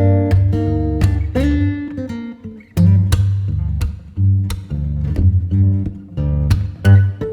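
Background music of plucked and strummed acoustic guitar, with low bass notes under the melody.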